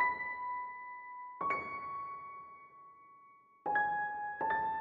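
Slow background piano music: single notes struck every one to two seconds, each left to ring and fade.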